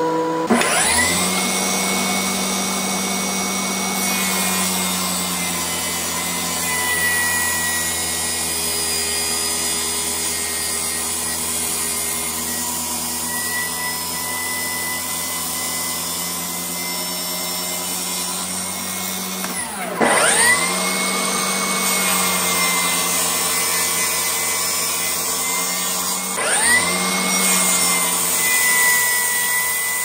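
Table saw motor starting up with a rising whine and then running steadily while construction pine is ripped. The saw starts up again about 20 seconds in and once more about 26 seconds in.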